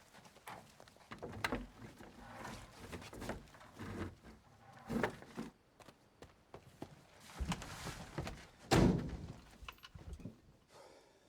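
A series of irregular thuds and knocks, the heaviest about nine seconds in.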